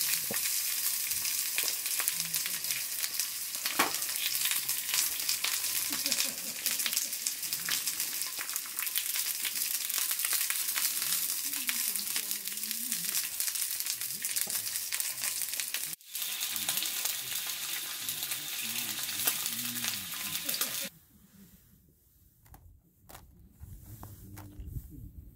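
Slices of meat frying in a frying pan over a camping gas stove: a dense, crackling sizzle with small pops. Near the end it cuts off abruptly to a much quieter stretch with only faint light sounds.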